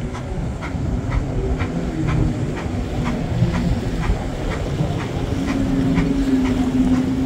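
Jet ski engine running steadily underway on the river, with a light regular knock about twice a second. The engine hum firms up and grows a little louder about five seconds in.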